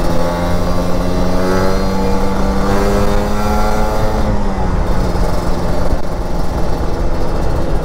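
Motorcycle engine running under the rider, its pitch climbing slowly for about four seconds as it accelerates, then dropping as the throttle is eased off, with low wind rumble on the microphone.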